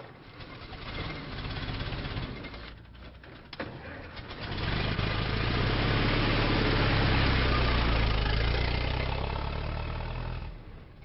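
A car engine being started: it turns over and catches, a sharp click about three and a half seconds in, then runs up louder and steady before fading away as the car drives off.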